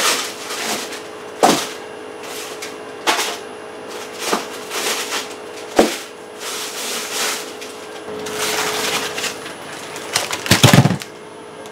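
Frozen meat packages being handled in a chest freezer: plastic wrap rustling and frozen blocks knocking, every second or two, loudest near the end, over a steady hum.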